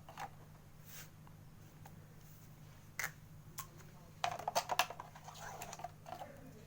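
Faint light clicks and taps of small plastic parts being handled while working over a motorcycle battery, with a quick run of clicks about four to five seconds in.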